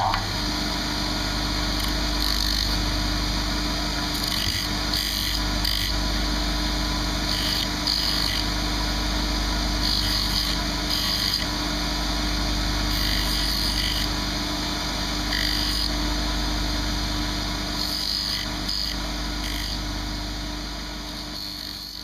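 Bench polishing motor spinning a cloth cutting mop with a steady hum. A pewter belt buckle is pressed against the mop again and again to bring up highlights, adding short bursts of higher hiss. The sound dies away at the end.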